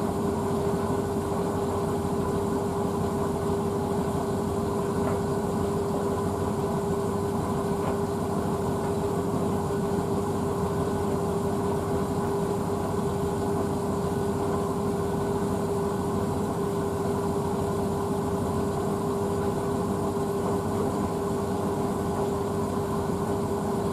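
Blomberg WNF9448 washing machine filling with water for its second rinse, with the drum not turning. It makes a steady hum with one constant tone over an even rush of noise.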